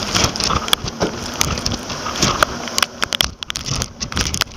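Storm-force wind buffeting the camera's microphone in a rough, uneven rumble, with wind-driven rain crackling and pattering on the camera.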